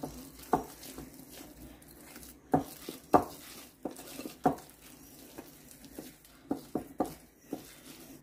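Cake batter being stirred by hand in a bowl, the utensil knocking against the bowl in about a dozen irregular clicks, some with a brief ring.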